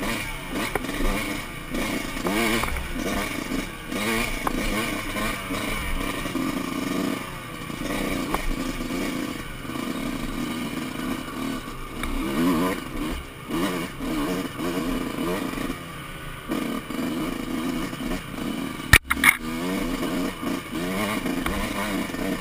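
2005 Kawasaki KX125 two-stroke engine with an FMF shorty pipe, revving up and down again and again with the throttle over rough, rocky ground. Near the end there is one sharp, loud knock.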